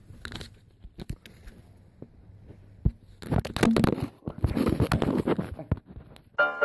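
Loud rustling and scraping right against the microphone, with scattered clicks, from handling and scuffling at close range. It is loudest from about three seconds in until just before six seconds. Piano music starts just before the end.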